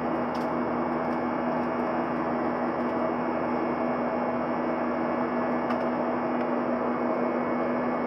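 Steady jet cabin noise inside a Boeing 737-900: the even rush of airflow and the drone of its CFM56-7B turbofan engines, with a constant low hum running through it.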